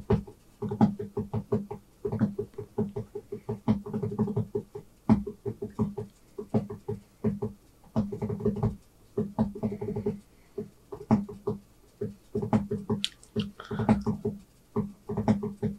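A person beatboxing with the mouth: a fast, rhythmic run of clicks and short low pulses, in phrases broken by brief pauses.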